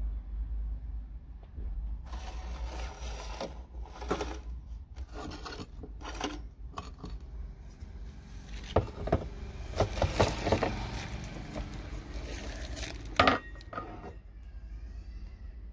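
Stainless steel coffee pots being handled and set down on a table: scattered scrapes and rubs with several clinks and knocks, the sharpest knock about thirteen seconds in.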